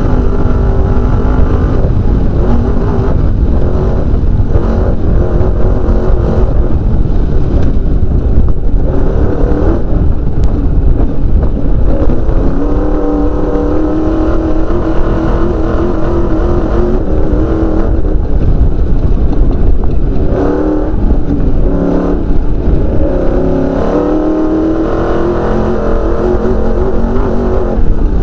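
Off-road race car's engine at high revs, heard from inside the cockpit. Its pitch repeatedly climbs and drops as it accelerates and shifts, over a constant heavy rumble from the car running over the rough dirt track.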